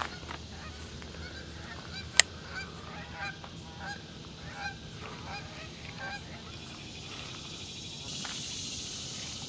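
Waterfowl honking in a string of short calls across the middle of the stretch, with one sharp click about two seconds in. A soft hiss comes in near the end.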